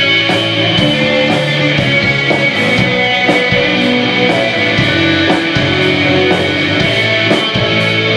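Postpunk band playing live: distorted electric guitars, bass guitar and drums. The passage is instrumental, over a steady drumbeat of about two beats a second.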